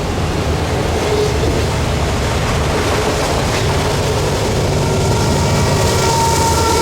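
Freight train rolling past at track side: a steady rumble of wheels on rail. A faint, thin, high tone joins the rumble about five seconds in.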